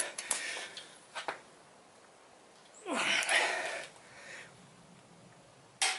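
A man's heavy, breathy exhale of effort about halfway through, from straining on a torque wrench to bring main studs up to 125 foot-pounds. A single light metal click comes about a second in.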